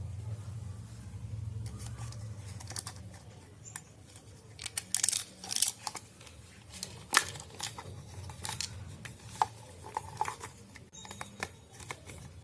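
Screws being driven into a hair dryer's plastic housing by hand, with irregular clicks and short scrapes of plastic parts being handled, most of them in the second half.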